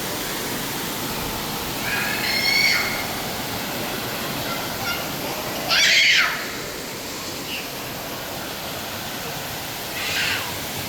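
Steady rushing of an indoor waterfall, with three short high-pitched calls breaking over it, the loudest about six seconds in.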